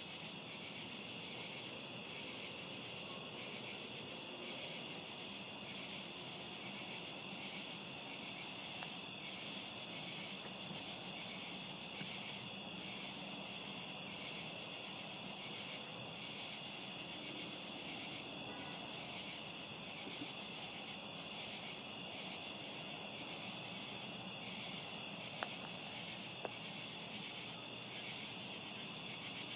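A steady chorus of night insects, trilling at several high pitches without a break.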